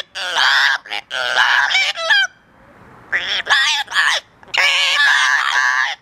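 Yellow-naped amazon parrots calling loudly in long, wavering squawks, in four bursts with short pauses between them.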